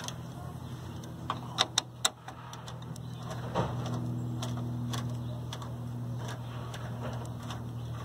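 A few sharp metallic clicks, four in quick succession between one and two seconds in, as a screwdriver is worked against the desktop PC's CPU cooler. A steady low hum runs underneath.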